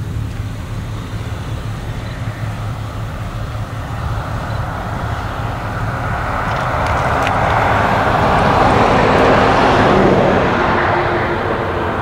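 Case IH 9120 combine harvester working as it cuts wheat: a steady low engine drone under a rushing mechanical noise from the header and threshing. The rushing noise builds from about four seconds in as the machine comes closer, is loudest a couple of seconds before the end, then eases a little.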